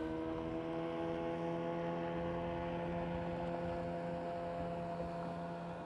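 Bow-mounted electric trolling motor running, a steady hum that rises slightly in pitch as it spins up, then holds even.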